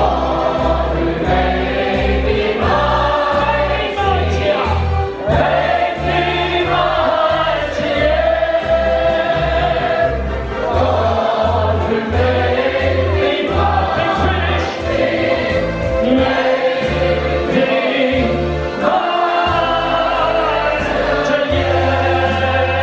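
Live stage show music: a group of singers with full musical backing and a steady bass pulse, many voices singing together in a patriotic finale.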